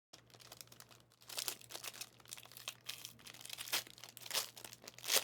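Trading-card pack wrappers crinkling and tearing as packs are opened and handled, with irregular sharp crackles loudest near the end, over a faint steady hum.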